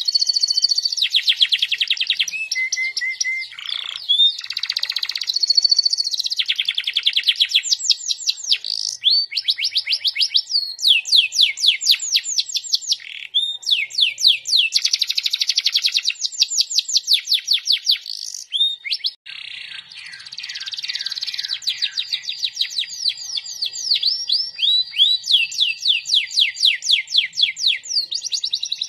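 Domestic canary singing a long, nearly continuous song of fast trills: runs of quickly repeated sweeping notes, changing from one trill to the next, with a brief break about two-thirds of the way through.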